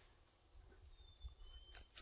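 Near silence: faint outdoor background, with one faint, brief high-pitched chirp about a second in that steps down in pitch.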